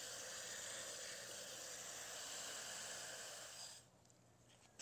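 Water spraying from a garden hose spray nozzle onto the soil of a potted pepper plant: a steady hiss that cuts off suddenly near the end.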